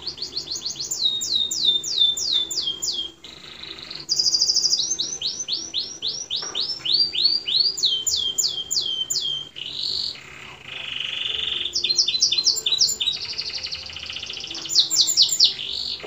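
Domestic canary singing a long song of repeated phrases: runs of high whistled notes, each sliding downward, at about three to four a second, alternating with fast buzzy trills, with brief breaks between phrases.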